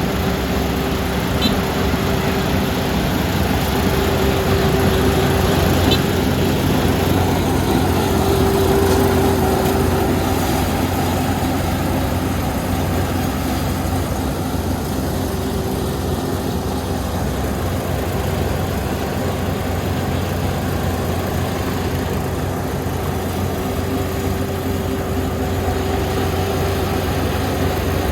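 Kubota ER470 combine harvester running steadily, its diesel engine and machinery making a constant drone, with a mid-pitched whine that swells and fades several times.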